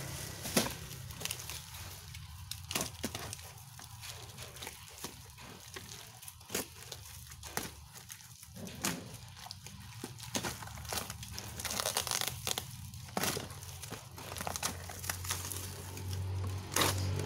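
Clear plastic wrap and packing tape being torn and crinkled off a cardboard box: irregular crackling and ripping with several sharper snaps, and cardboard flaps scraped and pulled open near the end.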